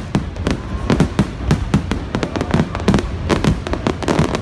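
Aerial fireworks going off in rapid succession: many sharp cracks and bangs, several a second, over a continuous low rumble of explosions.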